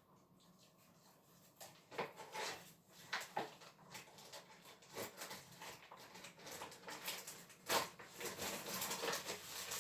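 Plastic vacuum packaging being peeled and pulled off a raw steak by hand: irregular crinkling, rustling and small clicks that begin about a second and a half in and go on to the end.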